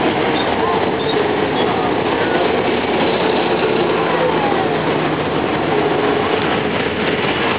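Steady running noise of a trackless tourist road train on rubber tyres, heard from its open passenger carriage as it moves through city traffic. A large bus passes close alongside about four seconds in.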